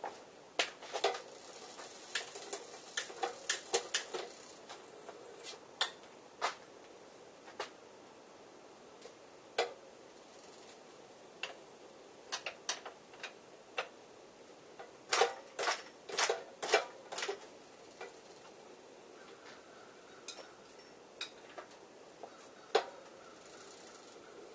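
Metal hand tools and parts clinking and clattering as they are picked up and set down, irregular sharp clicks in bunches with a couple of flurries.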